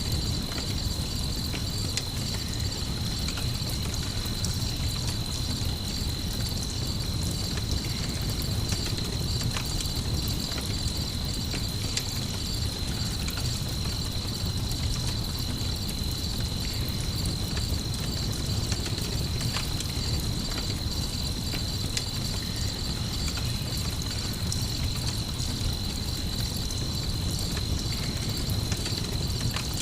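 Crickets chirping in a steady high trill, layered over a low rumble with scattered faint crackles of a campfire.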